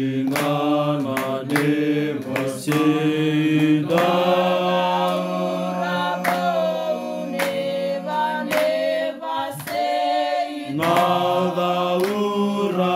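A group of voices singing together in harmony, a Fijian song, over a long held low note. Hand claps keep time. The voices drop away briefly about nine and a half seconds in, then come back.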